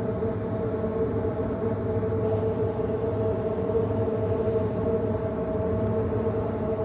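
Steady machine hum holding two constant tones over a low drone, without rising or falling.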